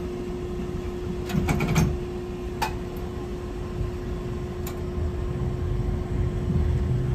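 Hankai Tramway Type 701 streetcar heard from inside the car: a steady hum, a handful of sharp clicks in the first few seconds, and a low rumble that builds near the end.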